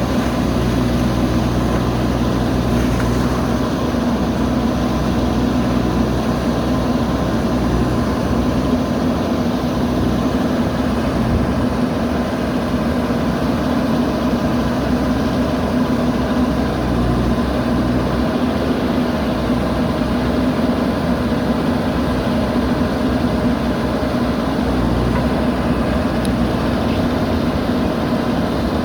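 A JCB backhoe loader's diesel engine running steadily at an even speed.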